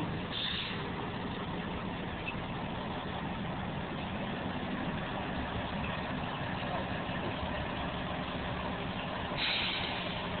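A vehicle engine idling steadily, with two short hissing bursts: one about half a second in and one near the end.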